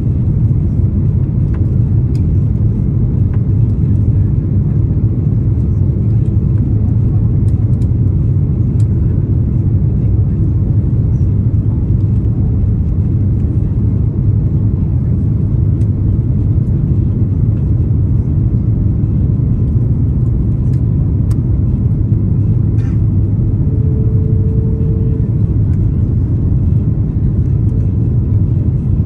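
Airbus A330-300 cabin noise in flight: the steady deep rumble of the engines and airflow heard from a passenger seat, even and unchanging.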